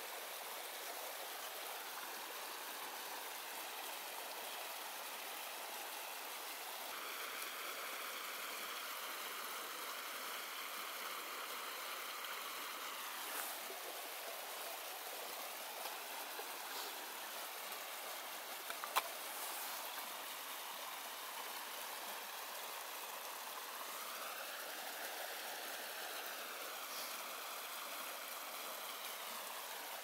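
Small forest stream running over stones: a steady, gentle rushing. A single sharp click about two-thirds of the way through stands out above it.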